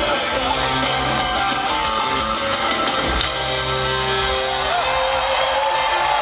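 A rock band playing live, led by an electric guitar line that bends and slides over bass and a full band, heard from the audience in an arena.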